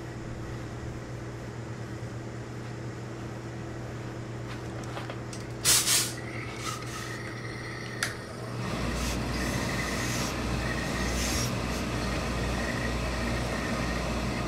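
Hose-fed tailor's steam iron pressing wool suit trousers. A short loud hiss of steam comes a little before halfway, then from about two-thirds of the way through a steady hiss of steam and the iron rubbing over the cloth, over a low hum.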